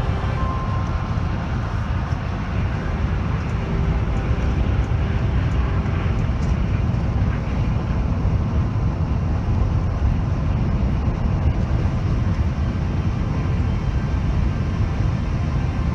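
Steady low rumble of a vehicle in motion, even throughout with no distinct events.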